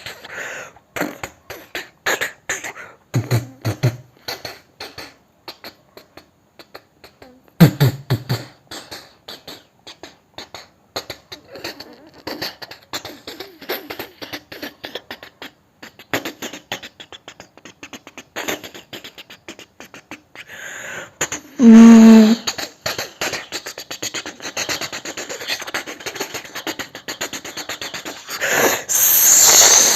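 A man imitating a train with his mouth: rhythmic chuffing clicks that quicken as the train picks up speed, with a loud hooting whistle call about two-thirds of the way through and a hiss starting near the end.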